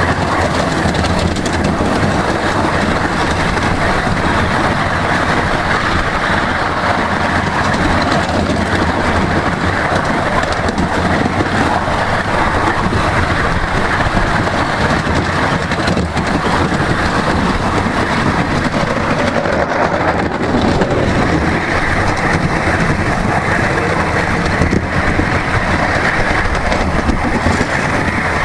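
Miniature railway train running along the track, with the steady rumble and clatter of the ride-on passenger cars' wheels on the rails.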